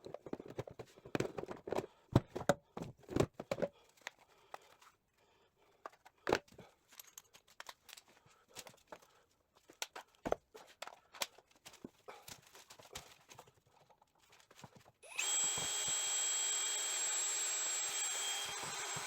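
Scattered knocks and clicks of metal tools and parts being handled, then about 15 seconds in an electric drill starts and runs steadily with a high whine, drilling out the broken shift fork pin in a Triumph TR6 gearbox.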